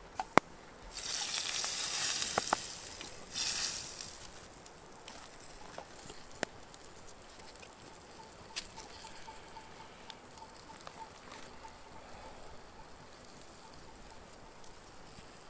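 Food sizzling on the heat over a campfire: two loud bursts of sizzling in the first few seconds, then fainter crackling with a thin whistle for a few seconds in the middle.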